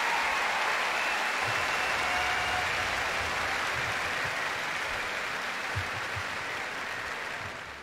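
Large arena audience applauding, a dense, steady roar of clapping that fades out near the end.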